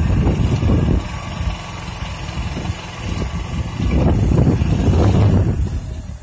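Car engine and road noise heard from inside the moving car: a low rumble, heavier in the first second and again about four seconds in, easing off near the end.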